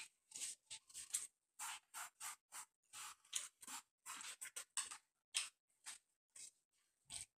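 Close-up eating sounds from a fried chicken leg: a quick run of short, sharp mouth noises as meat is eaten off the bone, about two or three a second with silence between.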